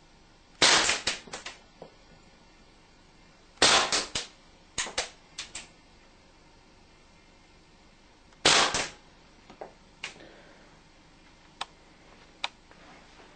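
Airgun shots at an LCD monitor: three loud, sharp cracks, at about a second in, about four seconds in and about nine seconds in, each followed by a quick run of smaller clicks and rattles. A few fainter single clicks fall in between.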